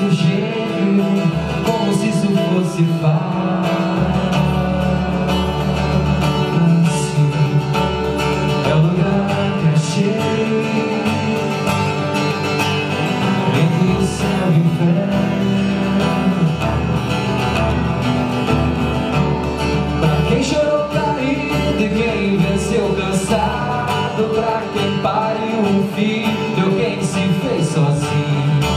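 Acoustic guitar strummed steadily while a man sings, a live solo song amplified through a PA.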